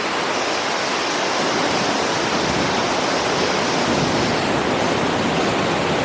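Steady, dense rush of falling water, as of a waterfall close by.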